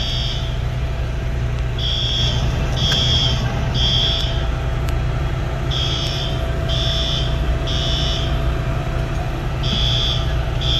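Building fire alarm sounding the temporal-three evacuation pattern: three high-pitched beeps, a pause, then three more, repeating about every four seconds. A steady low rumble runs underneath.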